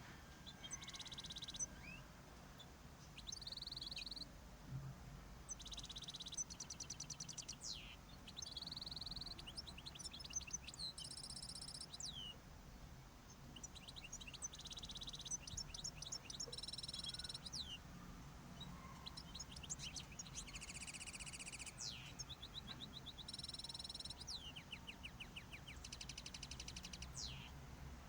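Small cage birds singing: repeated short song phrases of buzzy trilled notes, nasal beeps and quick falling whistles, coming every second or two, over a faint low hum.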